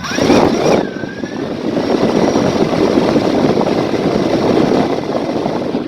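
DJI Phantom 4 quadcopter's motors and propellers running loudly and steadily, with a brief rise in pitch near the start, during a test flight after repair.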